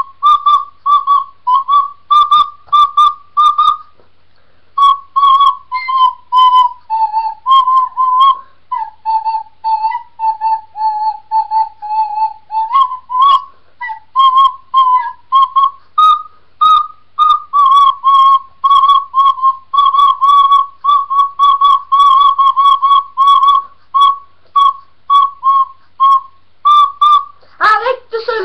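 Recorder playing a melody of short, separate notes, with a brief pause about four seconds in and a run of longer held notes in the middle. A voice starts singing right at the end.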